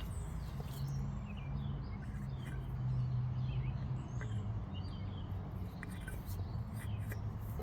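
Birds chirping in short calls over a steady low hum, with a few faint clicks.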